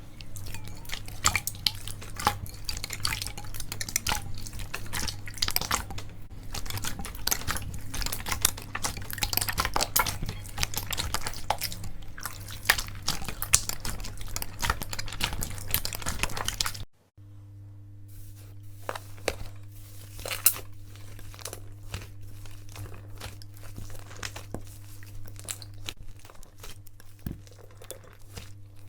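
Slime being squeezed, poked and stretched by hand: dense wet crackling and popping. It breaks off briefly at a cut, then goes on more quietly with another slime.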